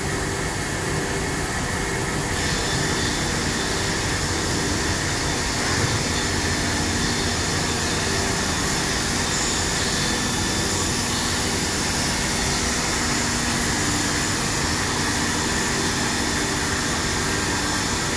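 Cosmec Conquest 515 CNC router running: a steady mechanical hum and whine with several held tones, growing brighter about two seconds in.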